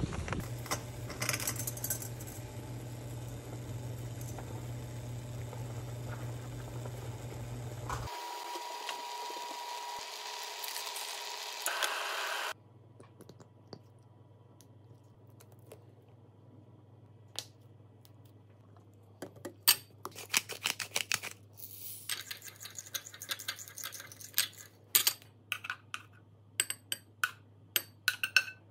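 Footsteps on paving over steady street noise for the first several seconds, then a quiet kitchen where a spoon and utensils click and clink against ceramic dishes, coming thick and fast in the last third.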